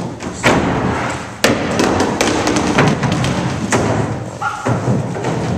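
Stage combat on a wooden stage: a dense run of thumps and knocks from bodies and furniture being struck and shoved, with scuffling in between.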